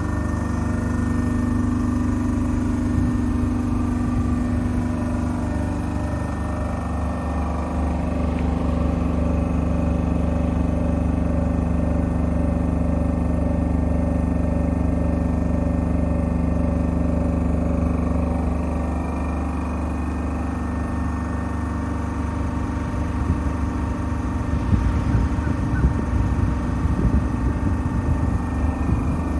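KAESER oil-free piston compressor running with a steady mechanical hum and a regular pulsing beat. In the last few seconds it turns rougher, with an uneven clatter.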